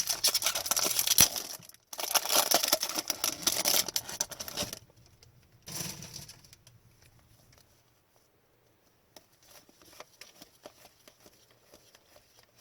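Foil wrappers of 2021-22 Upper Deck Series 1 hockey card packs being torn open and crinkled, in two long stretches with a short break between, then a brief crinkle about six seconds in. After that only faint clicks of cards being handled.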